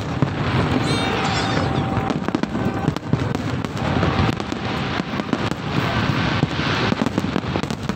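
Large aerial fireworks display: many shells bursting in quick succession, their booms and crackle overlapping without a break.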